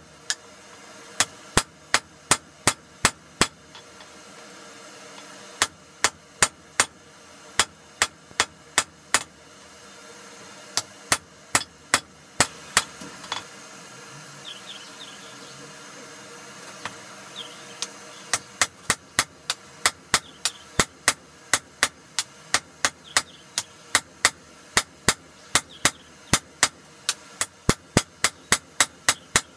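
Hand hammer blows on a hot steel block-hammer head held in tongs on an anvil, in runs of sharp strikes about two to three a second, broken by short pauses and a longer pause of about five seconds around the middle before a steady run of blows to the end.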